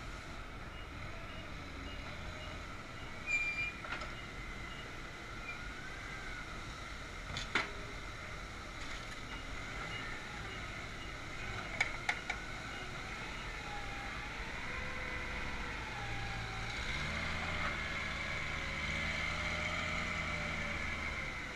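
Forklift engine running while the forklift carries a bin of grapes, with a faint repeated beeping in the first half. Sharp metal clanks come from the forks and bin several times, loudest about seven seconds in. In the last few seconds the engine note holds higher and steadier as the hydraulic mast lifts the bin.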